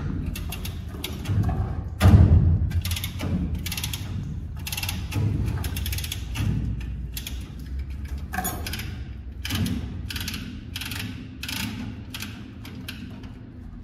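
New Holland backhoe loader running while its hydraulics are worked: a steady low engine hum under a string of short metallic rattling, ratcheting bursts, about one a second.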